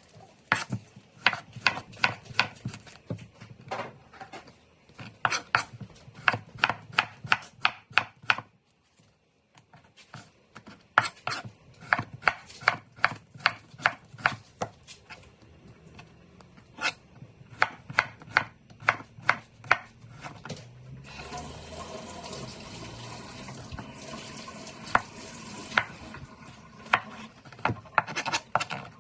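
Knife chopping on a cutting board in quick, even strokes, about three or four a second, with a short pause about a third of the way through. Near the end the chopping gives way to a steady hiss for several seconds, with a few knocks over it.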